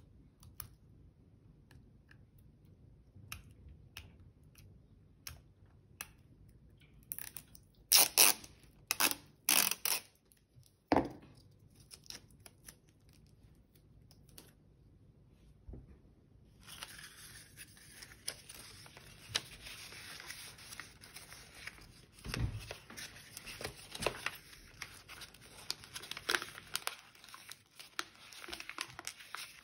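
Clear sticky tape pulled off its roll in about four short, loud rips, with faint clicks before them. Later comes steady rustling and crinkling of paper being handled and wrapped.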